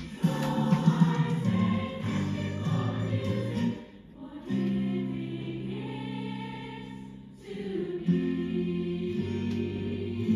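A choir singing slow, sustained chords. About four seconds in the singing briefly breaks off, then a long held chord swells and fades, and a new phrase begins near the end.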